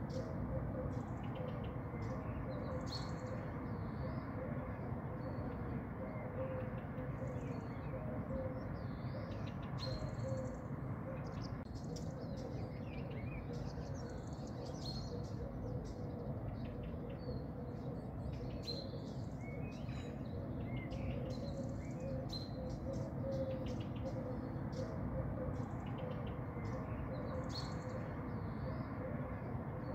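Small birds chirping and tweeting in short, scattered calls, over a steady low background noise.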